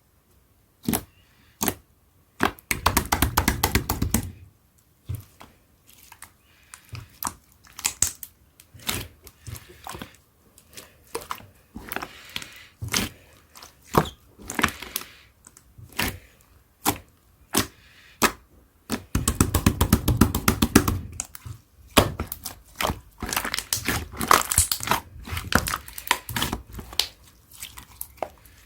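Clear slime being squeezed and pressed by hand, giving sharp clicks and pops, with dense crackling stretches about three seconds in and again around twenty and twenty-four seconds in.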